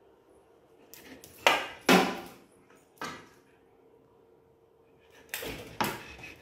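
A long wooden stick carried in a golden retriever puppy's mouth knocking against hard surfaces: sharp knocks with a short ringing tail, a loud pair about one and a half seconds in, a single knock at three seconds, and another pair near the end.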